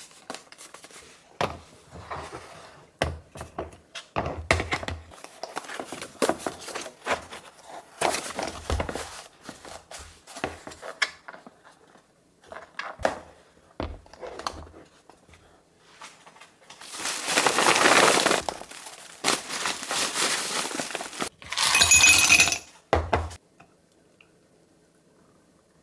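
Dishes and glassware clattering and clinking, with many short knocks. Near the end come three louder stretches of noise, the last with a ringing clink in it.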